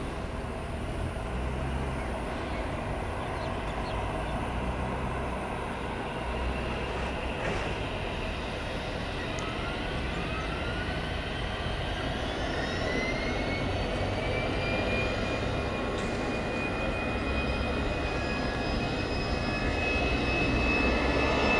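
Jet engines of an Airbus A320-216, CFM56 turbofans, heard as a steady rumble, then about nine seconds in a rising whine as the engines spool up, levelling off into a steady high whine while the sound grows steadily louder toward the end, typical of thrust being set for takeoff.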